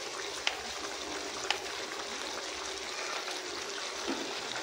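Pot of vegetable soup simmering on the stove: a steady bubbling hiss with a few small pops.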